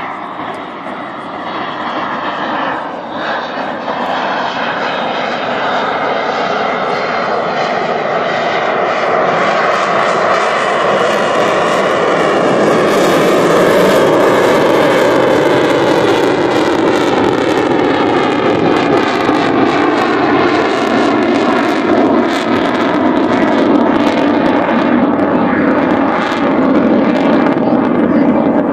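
Eurofighter Typhoon's twin Eurojet EJ200 turbofan engines: loud jet noise that swells over the first dozen seconds and then holds, its tone slowly shifting as the jet passes.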